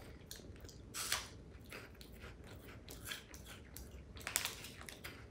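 Chewing a crunchy chocolate-coated corn puff stick (chocolate umaibo): a string of short crisp crunches, louder about a second in and again near the end.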